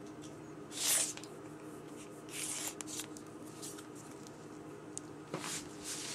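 Soft swishes and rustles of a flexible tape measure being handled and drawn around a bare waist, the loudest about a second in, with a few faint clicks.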